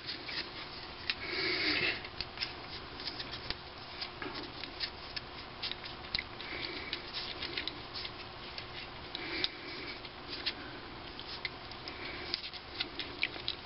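Teflon thread tape being pulled off its roll and wound by hand over the packing on a fuel pump plunger: soft rasping every few seconds as the tape unreels, with many small handling clicks and crackles.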